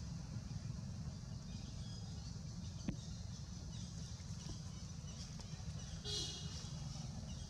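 Steady low outdoor rumble, with a single sharp click about three seconds in and a brief high-pitched animal call about six seconds in.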